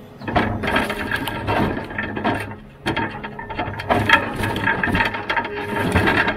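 Wooden logs clattering and knocking against each other and the steel bunk as a Rottne F13-C forwarder's crane grapple sets a bundle of thin logs into the load space. Many sharp knocks in quick succession over a steady hum from the machine.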